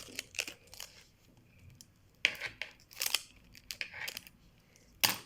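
Scissors cutting in a few separate sharp snips spread over several seconds, the loudest one near the end.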